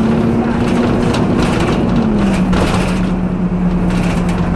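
Inside a moving single-deck bus: steady engine and drivetrain drone, its note dropping a little about two seconds in, with clicks and rattles from the cabin fittings.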